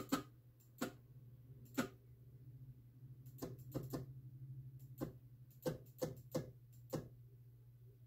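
Computer mouse button clicking: about ten single clicks spaced irregularly, over a steady low hum.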